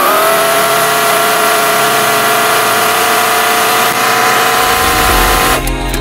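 1992 Chevy K1500 pickup's small-block 350 V8 running at idle, with a steady whine over the engine noise. It comes in suddenly, its pitch settling slightly in the first half second, and cuts off suddenly near the end.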